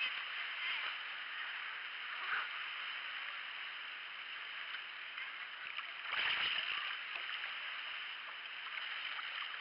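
Sea water hissing and splashing along a moving kayak's hull as it is paddled, with a louder splash about six seconds in.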